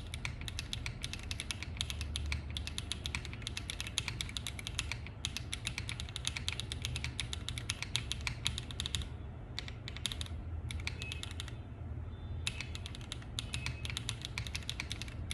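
Typing on a Wekav Star80 1.2 mechanical keyboard with HMX Xinhai switches and PBT doubleshot keycaps: rapid runs of keystrokes that thin to a few scattered presses about nine to twelve seconds in, then pick up fast again.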